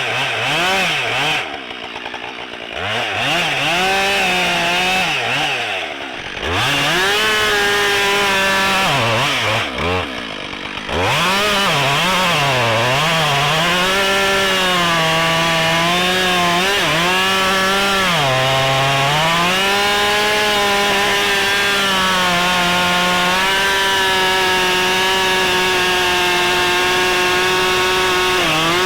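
Husqvarna 572xp two-stroke chainsaw cutting through big ash logs, its engine at high revs with the pitch sagging and climbing back as the chain works through the wood. The throttle drops off briefly three times in the first eleven seconds, then the saw runs at steady high revs for the rest of the cut.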